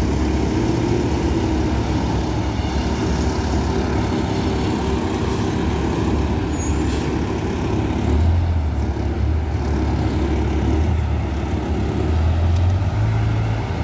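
Diesel engine of an MTA express coach bus running as it pulls slowly past close by, a steady low rumble that swells about eight seconds in and again near the end.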